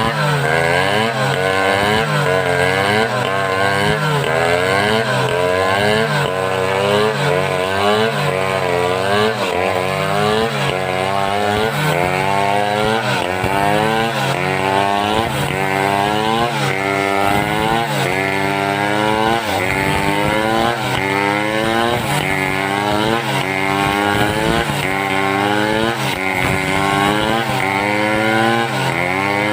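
Two-stroke homemade chainsaw cutting mindi wood at high revs, its engine pitch dipping and climbing back over and over, about once a second, as the chain loads and frees in the cut.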